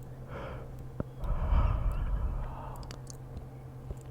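A man's breath close to the microphone: a soft breath in, a small click, then a longer sigh out about a second in that buffets the mic.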